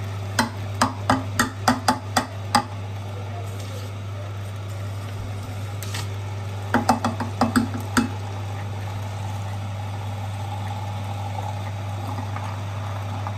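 Juice extractor running with a steady low hum while frozen grapes are crushed in it, giving two short runs of sharp cracks and knocks, one near the start and one about halfway through.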